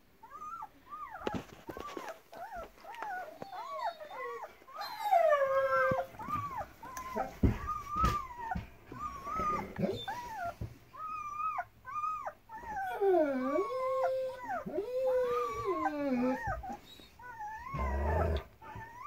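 Week-old German Shepherd puppies crying and whining: a long run of short, high, arching squeals, some sliding down in pitch, with a few longer drawn-out cries in the second half.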